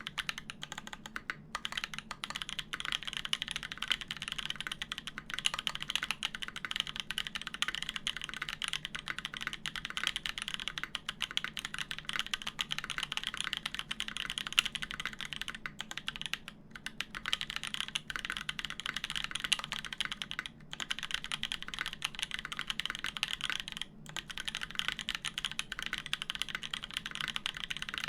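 Continuous fast typing on a custom mechanical keyboard with lubed Gazzew Boba U4T tactile switches in a polycarbonate plate, fitted with GMK keycaps. The keystrokes come in a dense, steady stream, with a few short pauses in the second half.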